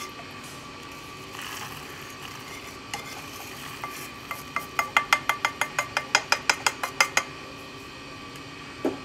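Roasted whole spices slide from a non-stick pan into a steel mixer jar, then a wooden spatula knocks and scrapes the last of them out in a quick run of light clicks, about six a second, for roughly three seconds.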